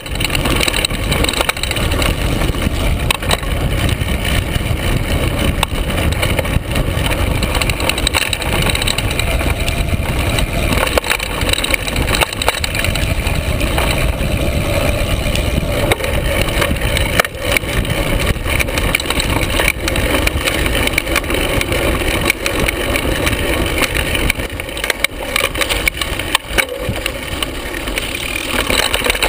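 Carbon hardtail mountain bike riding down rough, bumpy singletrack, heard from right on the frame near the bottom bracket: a steady rumble of knobby tyres over dirt and rock, full of constant rattling clicks and knocks from the bike bouncing over the bumps.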